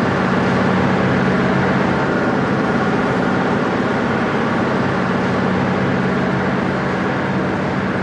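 Body shell of a high-speed train's nose section shaken by exciters, giving a loud steady hum with a dense rattling noise: the shell is resonating at its 17 Hz resonant frequency, as designed.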